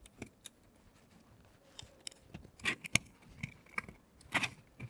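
Scattered light clicks and taps from a 3D-printed plastic assembly and its screws being handled and turned over, a few of them sharper than the rest.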